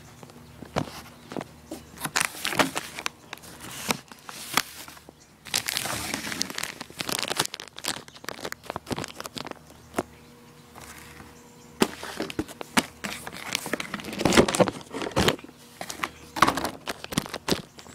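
Close-up rustling and scraping with many sharp clicks and cracks: handling noise of a phone rubbing and knocking against a cardboard box and towel, loudest about three-quarters of the way through.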